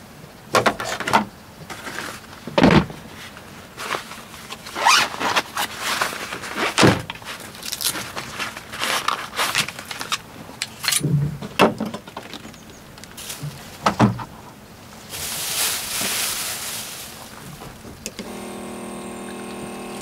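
Irregular knocks, clunks and rattles of objects being handled, a rushing noise about three quarters of the way in, then a steady hum near the end.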